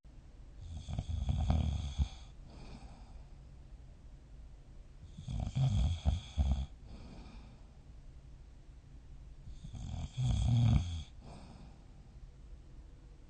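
A sleeping person snoring: three snores about four to five seconds apart, each lasting one to two seconds.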